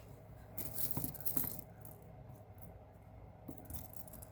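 Costume jewelry clinking and rattling as it is handled, in a short cluster of small metallic clicks about a second in and a single light knock near the end.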